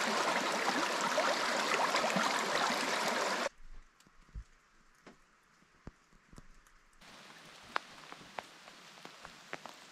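Shallow forest creek rushing over stones, a steady rush that stops abruptly about three and a half seconds in. Then it is nearly quiet with a few soft knocks, and after that a faint steady outdoor hiss with scattered clicks.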